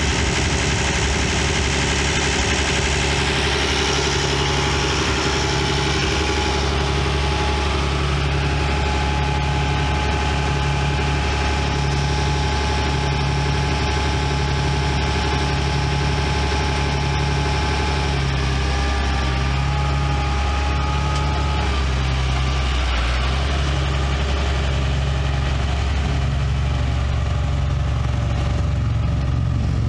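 Perkins 5.8-litre six-cylinder diesel engine of a Massey-Ferguson 2675 tractor idling steadily, with a slow throb about once a second. A thin whine rides over it and steps up in pitch about two-thirds of the way through.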